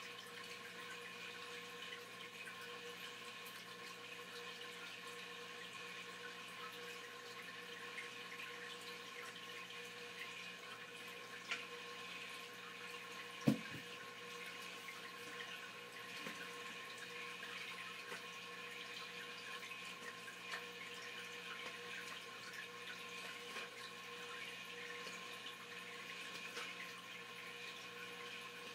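Faint steady background hiss with a low electrical-sounding hum, and one sharp low thump about halfway through.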